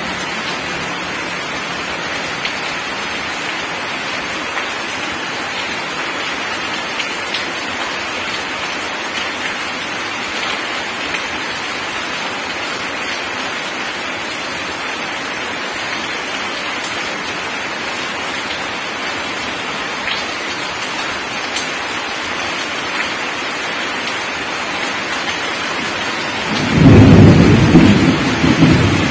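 Heavy rain falling steadily on gravel and puddle water, an even hiss. About 27 seconds in, a loud low rumble of thunder breaks in and carries on.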